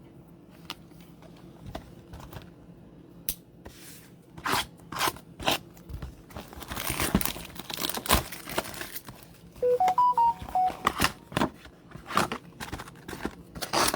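Plastic wrapping crinkling and tearing in irregular bursts, with sharp handling clicks, as sealed trading-card boxes are handled and opened. A short run of electronic beeps at stepped pitches comes about ten seconds in.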